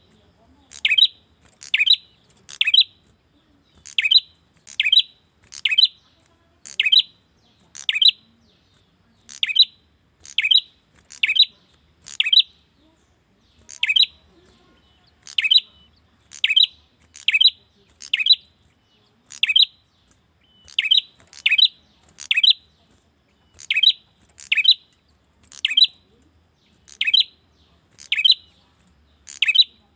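Male prenjak (prinia) calling to a female: a long series of short, sharp chirps, each dropping in pitch, about one or two a second and sometimes in quick pairs.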